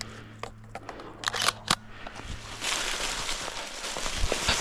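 Shotgun shells being pushed into the gun's magazine: a run of sharp metallic clicks during the first two seconds. Then footsteps crunching and rustling through dry fallen leaves, with a louder crunch near the end.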